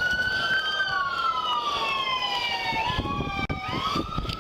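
Police car sirens wailing, their pitch sliding slowly up and down in a long rise and fall, with two sirens sounding out of step so their tones cross.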